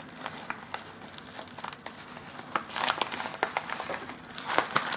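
Paper packaging crinkling and rustling as a white paper envelope is handled, with small crackles throughout and busier flurries about three seconds in and again near the end.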